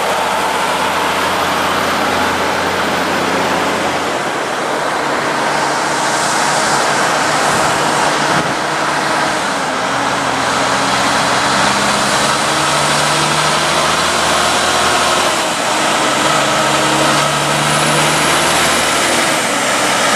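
Heavy-haulage Kenworth trucks pulling oversize loads past at low speed: the diesel engines run steadily, their note stepping up and down a few times as they pull away, over a constant rumble of tyres and traffic.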